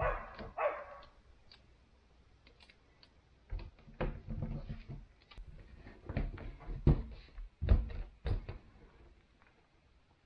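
Cardboard template being taped and pressed against a bus's wall: a short rasp of tape torn from the roll at the start, then a run of dull knocks and taps as hands press the cardboard flat.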